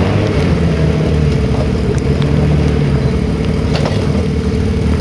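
Off-road trial buggy's engine running under load as it crawls up a slope of loose boulders, the note swelling and easing, with a couple of sharp knocks along the way.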